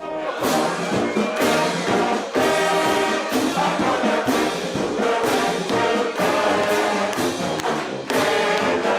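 Brass band music with trombones and trumpets playing a full, loud passage, with short breaks between phrases just after two seconds and near the end.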